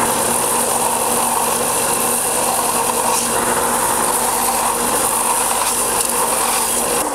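Belt sander running steadily while a carved wooden lure body is pressed against the belt to round off its edges, a constant motor hum under a high sanding hiss that stops near the end.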